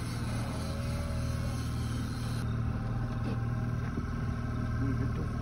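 Fishing boat's engine running steadily while trolling, a low even drone.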